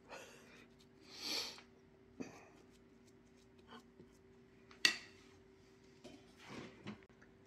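Metal spoon scooping mashed potatoes from a ceramic serving bowl onto a plate: soft scraping with a few sharp clinks of spoon on dish, the loudest about five seconds in. A faint steady hum lies underneath.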